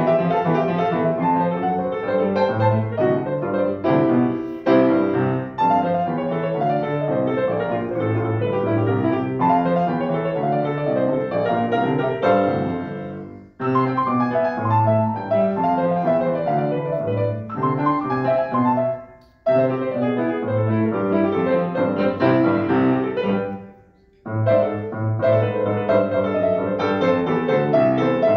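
Grand piano played solo in a steady stream of notes and chords. The playing breaks off briefly three times, letting the sound die away before it resumes, the first break about halfway through.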